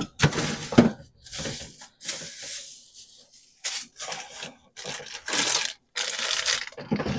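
Plastic bags crinkling and rustling in irregular bursts as someone rummages through a refrigerator.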